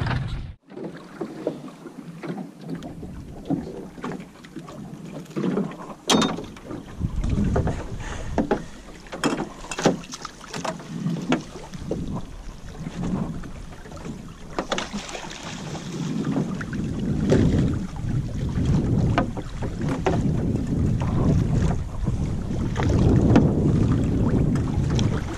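Water lapping and splashing against a small boat's hull, with wind buffeting the microphone and scattered sharp knocks.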